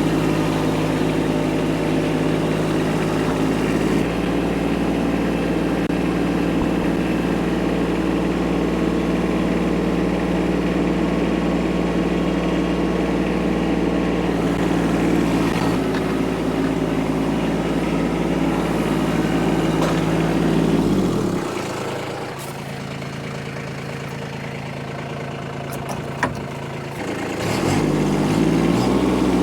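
Kubota tractor's diesel engine running steadily. About 21 seconds in the revs drop and the sound gets quieter for several seconds, with one sharp knock, then the revs rise back up near the end.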